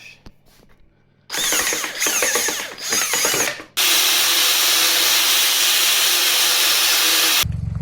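Electric starter cranking a 40 hp Gale outboard motor with a wavering whine, followed by about four seconds of loud, steady rushing noise with a steady hum. The sound cuts off abruptly near the end.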